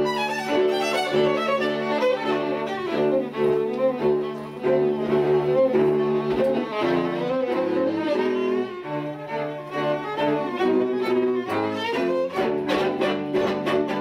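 String quartet of two violins, viola and cello playing live: bowed notes over a low cello line. Near the end it turns to short, separate strokes, about four a second.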